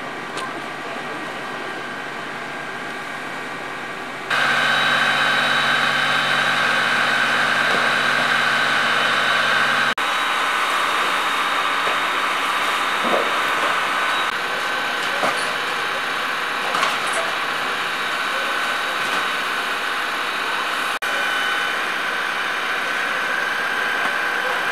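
Fire engine's engine and pump running steadily with a steady whine, supplying the hoses at a house fire. The sound jumps suddenly louder about four seconds in, with a few faint knocks later on.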